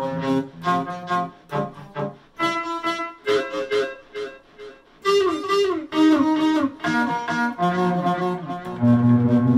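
Electric guitar playing a single-note melody: picked notes with string bends and vibrato in the middle, settling onto a held low note near the end.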